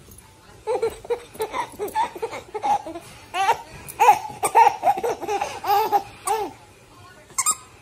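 A baby laughing in a string of short, high-pitched bursts, dying away about six and a half seconds in, with one last brief burst near the end.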